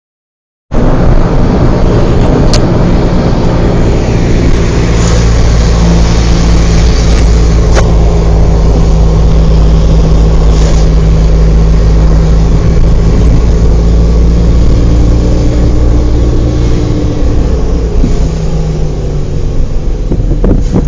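Car engine running at a steady idle, a loud, even, low rumble.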